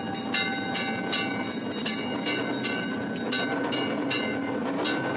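Metal temple bells clanging again and again, about two strikes a second, each ringing on over a dense, steady din.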